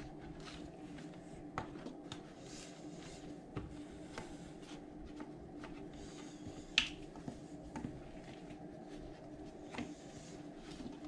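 Hands folding and pressing pastry dough on a silicone baking mat in a metal sheet pan: soft handling sounds with scattered light clicks and taps, the sharpest about seven seconds in, over a faint steady hum.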